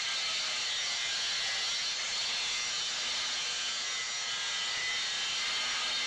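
Plasma cutter cutting steel plate: a steady high hiss of the arc and air jet.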